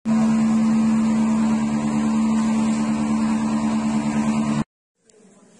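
A machine drone, loud and unchanging in pitch, of the kind an engine running steadily makes. It cuts off abruptly about four and a half seconds in.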